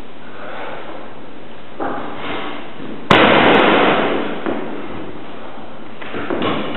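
A sudden loud bang about three seconds in that dies away over about a second, with a smaller noisy burst near the end, over a steady hiss.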